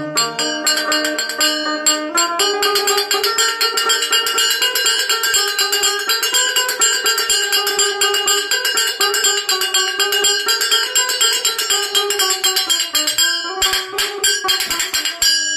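Long-necked plucked string instrument played solo in a fast, rapidly picked instrumental passage, a melody carried over quickly repeated strokes, with no singing.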